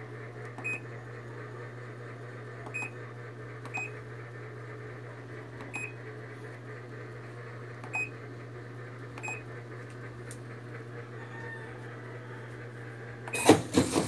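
Control-panel beeps of a Midea top-loading washing machine as its buttons are pressed: six short high beeps a second or two apart over a steady low hum. Near the end come a few loud knocks.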